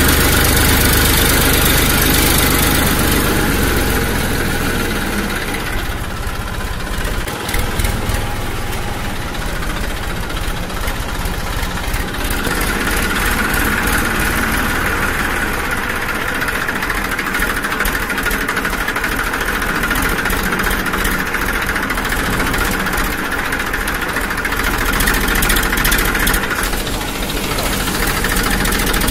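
A steady, continuous motor-like drone. It is heavier at the start and takes on a brighter tone from about 12 s until just before the end.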